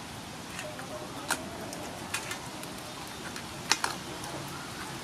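Birds calling in the background, with cooing like a dove's, and three sharp clicks: one about a second in, one after two seconds and one near four seconds.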